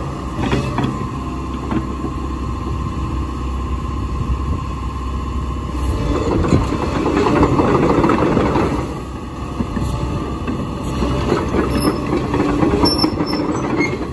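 JCB JS220LC 22-tonne tracked excavator's diesel engine running with a steady hydraulic whine. It swells louder for about three seconds in the middle as the boom and bucket are worked, then settles back.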